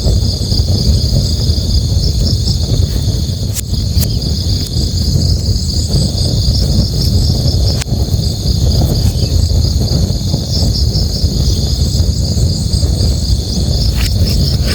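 Steady low rush of a river, with crickets chirping in a fast, unbroken pulsing trill above it and a few sharp pops from a crackling campfire.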